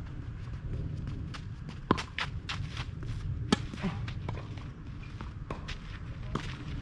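Tennis players' footsteps and shoe scuffs on a clay court, with a few sharp knocks from the tennis ball, the loudest about two seconds in. A steady low rumble sits underneath.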